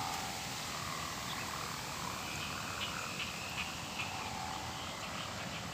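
Frogs calling in short chirps that repeat a few times a second from about halfway in, over a steady outdoor hiss.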